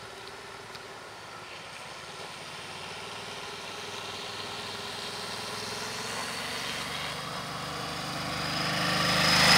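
Ducati Desert X's 937 cc twin-cylinder engine running steadily as the bike rides through a creek crossing, growing louder as it comes closer, with water spraying as it nears.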